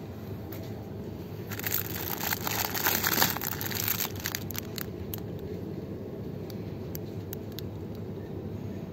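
Plastic wrapper of a pack of dried spaghetti crinkling as it is picked up and handled, loudest for about three seconds starting a second and a half in, then a few scattered crackles. A steady low hum runs underneath.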